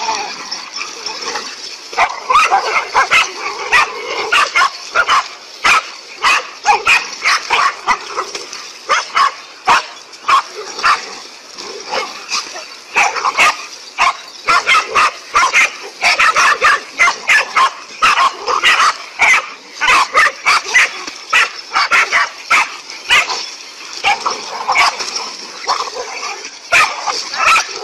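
A pack of dogs barking at a large snake they are attacking, several dogs at once, the barks coming thick and fast, several a second and overlapping, without a break.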